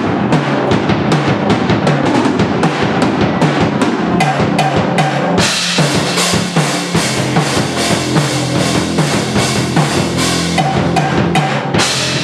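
Drum kit played live at a fast, steady beat over a sustained amplified guitar, a garage band jamming. Cymbals join in about five and a half seconds in, brightening the sound.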